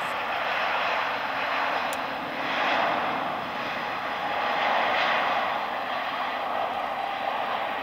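Airbus A350-900's Rolls-Royce Trent XWB turbofan engines running at high power as the airliner rolls along the runway: a steady jet rush that swells twice and eases back.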